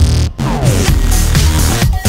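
Electronic dance music with heavy bass and falling synthesizer sweeps.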